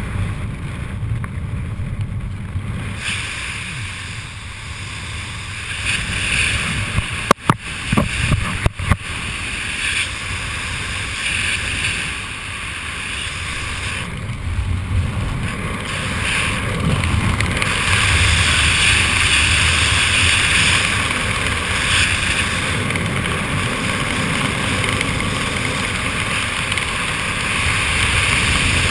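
Wind rushing over the camera microphone during flight under an open parachute canopy. A few sharp knocks come about seven to nine seconds in.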